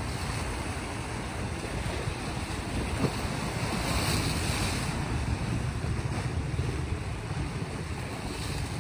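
Small waves washing against a rocky shore, with wind rumbling on the microphone. A wave swells into a louder hiss about four seconds in.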